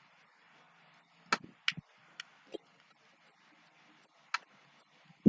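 About half a dozen sharp, irregular clicks and taps from a headset's small plastic parts, screws and screwdriver being handled during disassembly.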